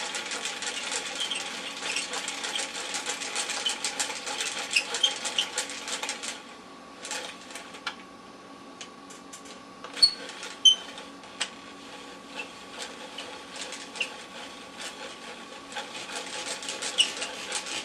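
Hand-cranked Skip Doctor disc repair device being turned: its crank mechanism clicking rapidly while the abrasive wheel rasps over the face of a CD, sanding out scratches. The clicking rasp stops about six seconds in, leaving only a few separate clicks, and starts again near the end.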